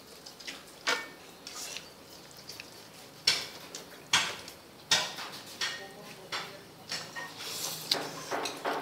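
Chopsticks knocking and clinking against ceramic bowls while people eat, a handful of sharp clicks scattered irregularly, the loudest in a cluster of three near the middle.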